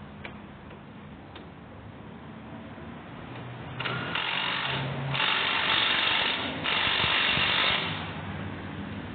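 A power tool runs in three bursts of about a second each, starting about four seconds in.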